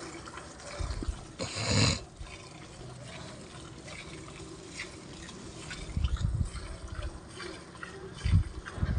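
Buffalo being milked by hand: milk streams squirting into a pail, with a loud rushing burst about one and a half seconds in and several low bumps in the last few seconds.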